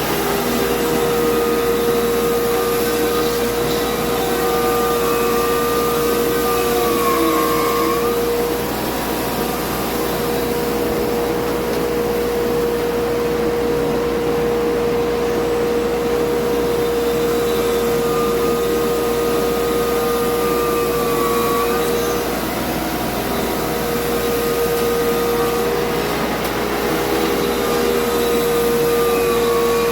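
Sawmill machinery running steadily: a continuous rushing noise with a constant whine and a higher tone that dips in pitch a few times.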